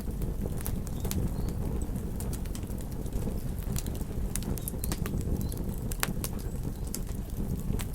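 Fireplace fire crackling: irregular sharp pops and snaps over a steady low rumble of burning flames.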